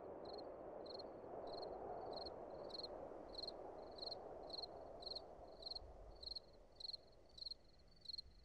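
Crickets chirping in an even rhythm, about three short high chirps every two seconds, over a low background hush that fades out about six seconds in.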